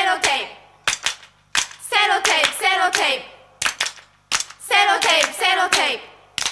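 Unaccompanied pop-song intro: handclaps with short chanted vocal phrases in pairs between them.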